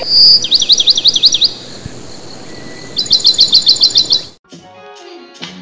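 Bird chirping loudly in two quick runs of rapid, high repeated notes, each lasting about a second, over a steady hiss. The hiss and chirping cut off suddenly a little past four seconds, and quiet music begins.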